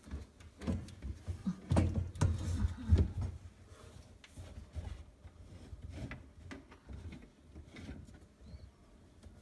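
Irregular knocks and clunks of hands working on a kitchen sink drain strainer, with the heaviest thumps about two seconds in and lighter clicks after.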